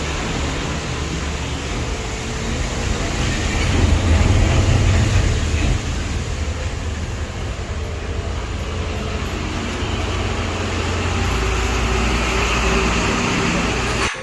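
Steady low rumble of vehicle noise, louder around four to five seconds in.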